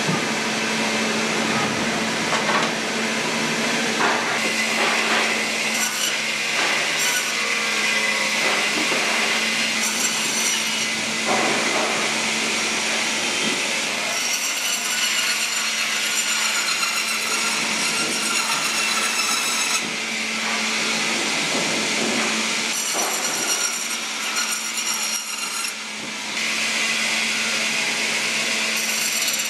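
Band saw cutting frozen tuna: a steady motor hum under the high, rasping grind of the blade through the frozen fish, easing for a moment near the end.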